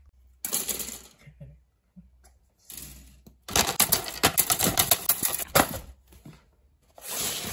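Plastic Gunpla model-kit runners clattering against each other and the cardboard box as they are handled, a dense run of quick clicks and rattles through the middle, with shorter rustling before and near the end.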